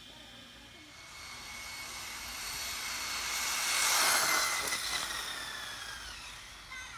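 Electric Losi 8ight 1/8-scale RC buggy on a full-throttle speed run: a high motor and drivetrain whine with tyre hiss that builds as it approaches, peaks as it passes about four seconds in, then drops in pitch and fades as it races away.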